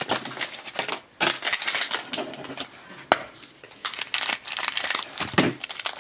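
A foil wrapper crinkling and a small plastic chocolate-bar-shaped toy case clicking as hands open it: a run of irregular rapid crackles and clicks.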